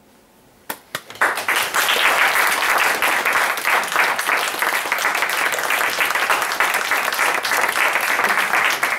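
Audience applauding: a couple of single claps about a second in, then the whole audience breaks into steady applause.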